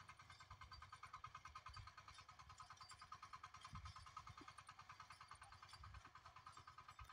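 Near silence with a faint, even low pulsing, about ten beats a second: the small engine of a walk-behind power weeder running.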